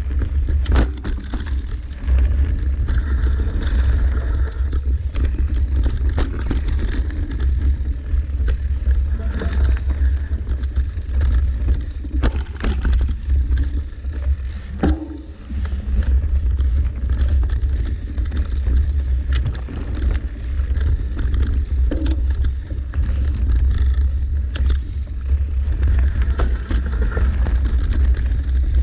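Mountain bike ridden fast along a dirt singletrack, with steady wind rumble on the camera microphone. The tyres run on the trail and the bike gives frequent rattles and knocks over bumps and roots. The rumble dips briefly about halfway through.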